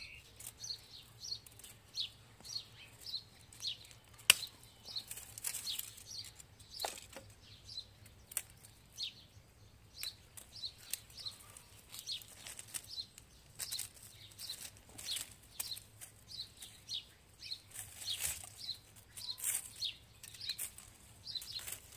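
Small birds chirping over and over, with a few sharp clicks of pruning cuts into forsythia branches; the loudest cut comes about four seconds in.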